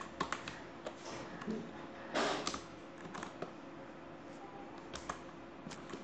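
Computer keyboard being typed on: a few scattered keystroke clicks, with a short louder noise about two seconds in.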